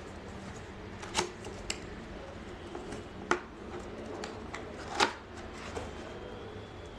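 Cardboard keyboard box being opened by hand: handling and rustling with several sharp clicks and taps spread through it, the loudest about five seconds in.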